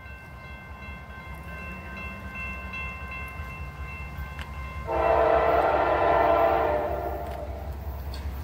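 Approaching Norfolk Southern freight train: a steady low locomotive rumble, then about five seconds in the locomotive's multi-chime air horn sounds one long blast of about two and a half seconds.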